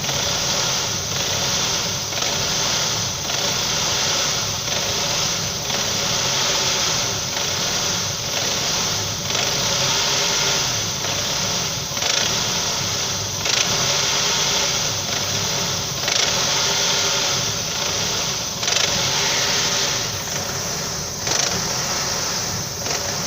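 Saab 9-5 engine running with a knock, a faint tap recurring every second or two over the steady running. The knock appeared after the engine was revved in a puddle and threw its belt.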